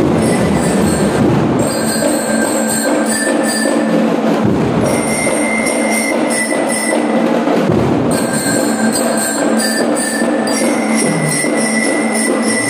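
Drum and lyre band playing: bell lyres ring held high notes over snare and bass drums. The low drumming drops out twice for a couple of seconds while the lyres carry on.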